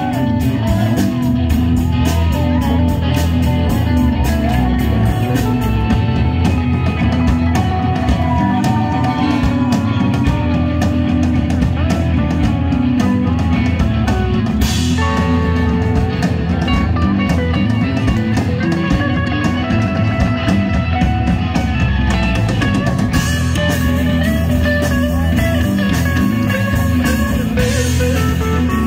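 Live rock band playing an instrumental passage: guitar lines over bass and drum kit, without vocals.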